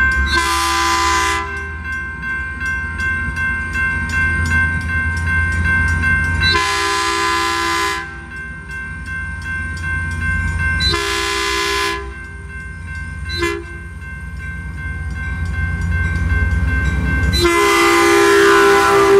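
Metrolink locomotive's air horn sounding for a grade crossing as the train approaches: three blasts of about a second each, a short toot, then a long blast near the end that grows louder as the train nears. Under it runs the steady low rumble of the oncoming train.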